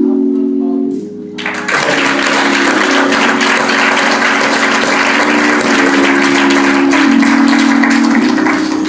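Congregation applauding over sustained keyboard chords. The clapping starts about a second and a half in and dies away near the end, while the held chords carry on underneath.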